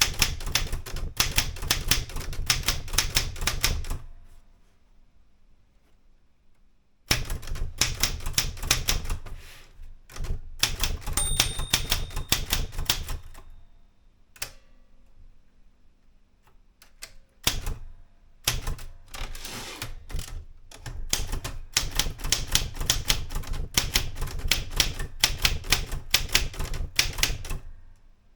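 Erika 105 manual typewriter being typed on in fast runs of keystrokes, with two pauses of a few seconds, the second broken by a few scattered clacks. A short high ring sounds about eleven seconds in.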